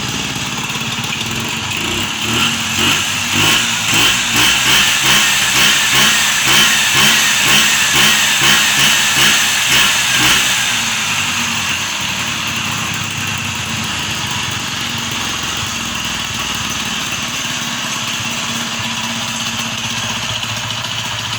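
Racing-modified Vespa scooter engine running. From about two seconds in, the engine note swells and falls about twice a second for some eight seconds, then settles back to a steady run.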